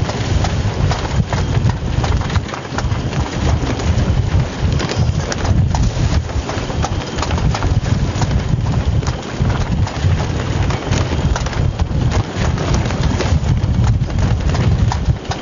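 Wind buffeting the microphone on a small sailing boat under way, a loud steady rumble and rush with many small irregular knocks and clicks through it.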